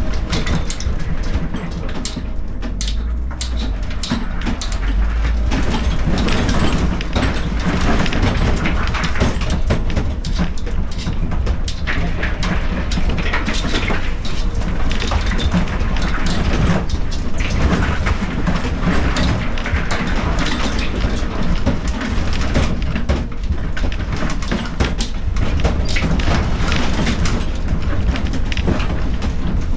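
A vehicle driving over rough ground: a constant deep rumble under dense rattling and clattering.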